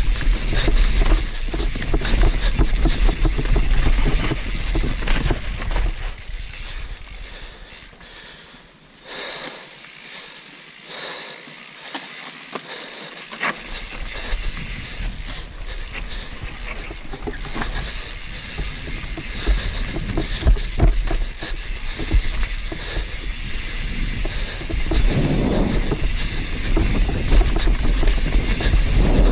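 Mountain bike riding fast down a dirt trail: wind rushing over the microphone, tyres rumbling on the dirt and the bike rattling and clicking over stones and roots. It eases off for several seconds about a quarter of the way in, then builds up again.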